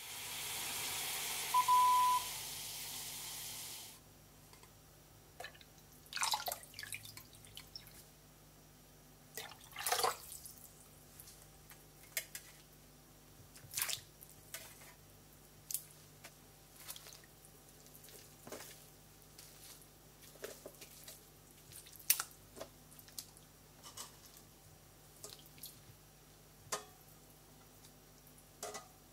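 Oden ingredients dropped one at a time into a clay pot of dashi broth: small wet splashes and clunks every second or two. For the first four seconds, a steady hiss from the small pan of mirin heating on the gas hob, with one short high beep about two seconds in.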